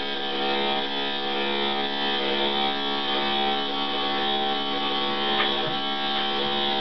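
Switchblade electric dog clipper fitted with a #5 steel comb, running steadily with a buzzing drone as it clips the coat. The sound is fairly loud.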